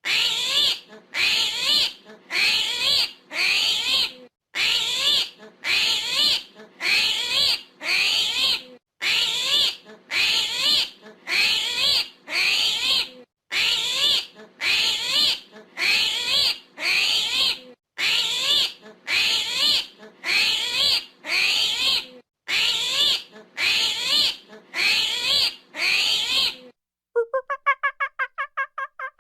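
An animal calling over and over: high-pitched calls just under a second long, in sets of four with brief breaks, repeating evenly. Near the end a different, fast-pulsing call starts.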